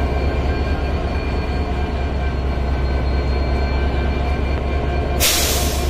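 Diesel locomotive engine running with a steady deep rumble and a faint steady whine over it; near the end, a short burst of hissing.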